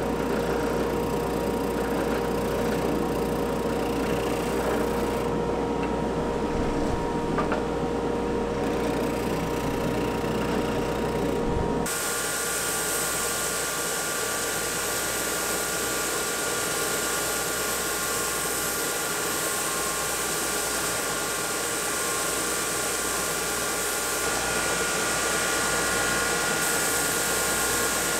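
A spindle sander runs with a steady hum while the curved edge of a wooden chopping board is sanded against its drum. About twelve seconds in, the sound switches abruptly to a belt sander running, with a higher steady whine and hiss as the board's flat face is sanded on the belt.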